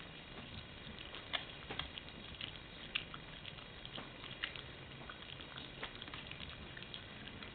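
A Siberian husky chewing a whole raw whiting fish: irregular wet crunches and clicks at uneven intervals, a few sharper than the rest.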